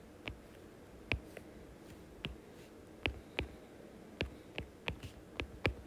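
Stylus tip tapping on a tablet's glass screen as lines and digits are drawn: about a dozen short, sharp taps, irregular at first and coming faster near the end.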